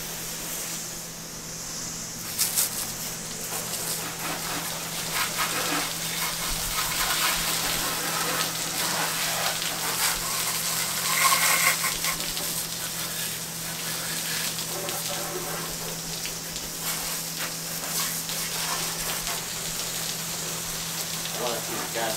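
Water from a hose spraying against a car's underbody and splashing onto the floor, rinsing off Simple Green degreaser: a steady hiss of spray.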